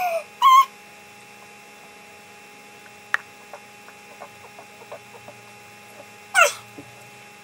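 Steady electrical mains hum on the recording. About halfway through, a can is gulped from with a run of faint swallows, and a loud breathy exclamation follows near the end. A short high vocal squeal comes right at the start.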